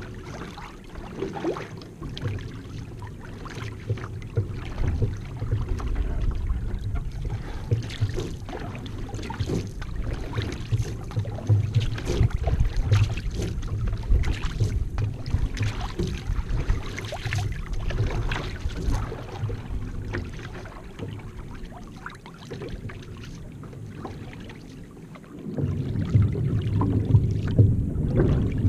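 Paddle strokes splashing and water rushing along the hull of a one-person outrigger canoe under way, over a low rumble of wind and water on the microphone. The rumble eases for a few seconds about two-thirds through and comes back near the end.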